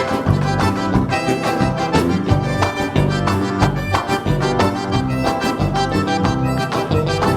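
A live band plays an instrumental passage with a steady beat, the accordion leading over guitar and bass.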